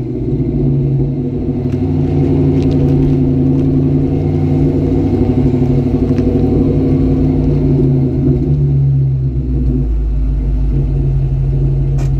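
2004 Ford Mustang GT's 4.6-litre V8 engine running steadily. The lowest part of its sound grows stronger about nine and a half seconds in.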